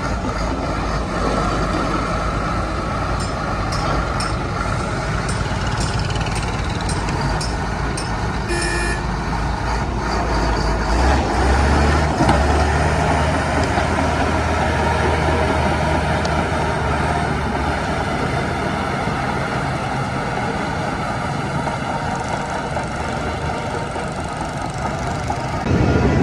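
Heavy diesel earthmoving machinery running, bulldozer and dump-truck engines, working harder and louder from about eleven seconds in. There is a short beep near nine seconds.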